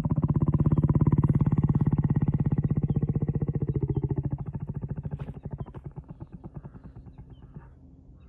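Lion giving a deep, rapidly pulsing rumble that holds for about four seconds, then fades away over the next few seconds.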